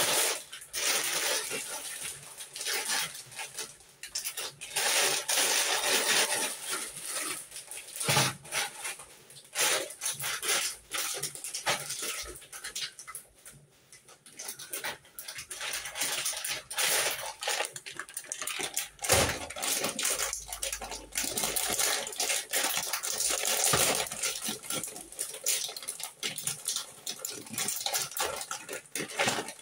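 Kitchen work at the sink: dishes and utensils clattering and knocking, over stretches of running tap water that start and stop.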